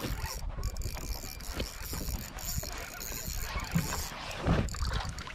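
Spinning reel being cranked as line is reeled in, its gears ticking, over a steady low rumble of wind on the microphone.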